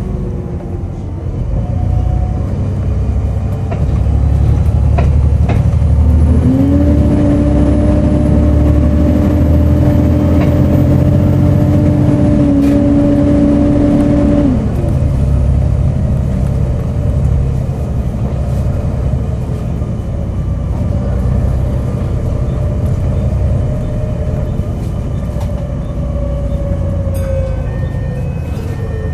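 Volvo B7TL bus engine running, with a steady hoover-like hum that rises in about six seconds in, holds and cuts off about eight seconds later, a fainter tone lingering after it; the uploader ties this 'strange random hoover' to the cooling fan.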